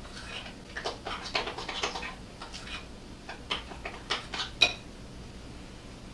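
A spoon stirring and scraping through thick mashed-potato batter in a glass mixing bowl, with quick clinks against the glass and one sharp ringing clink about four and a half seconds in; the stirring stops about a second later.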